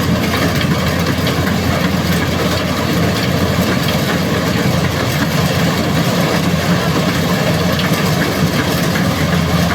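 Heavy engine of a rice-harvesting machine running steadily at an even pitch.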